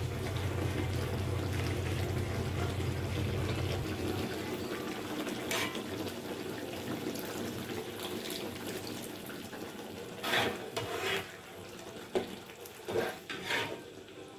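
Water poured from a bowl into a wok of simmering fish curry, splashing into the sauce. Near the end a metal spatula knocks and scrapes against the wok several times as the curry is stirred.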